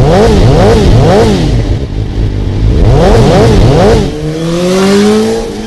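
An engine revved in quick blips, its pitch rising and falling about twice a second in two sets, then climbing in one long rise near the end as it accelerates.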